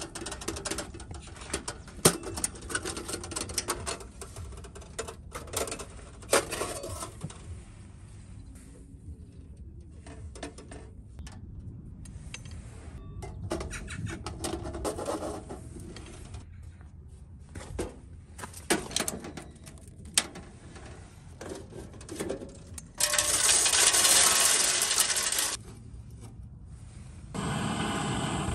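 Metal clanking and rattling as a stainless-steel camping stove and its chimney pipe are handled and fitted together, with a few sharp knocks. Later a loud rushing hiss lasts about two seconds. Near the end a steady torch-like rush begins, a butane torch lighting the pellet burner.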